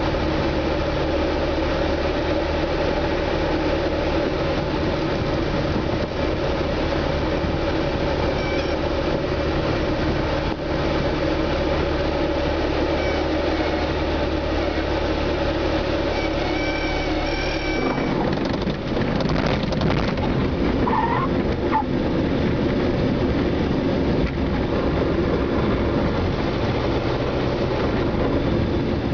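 Single-engine propeller plane's engine and propeller heard inside the cabin, a steady drone on the landing approach. About two-thirds of the way through the sound turns to a rougher, broader rumble as the wheels touch down and the plane rolls out along the runway.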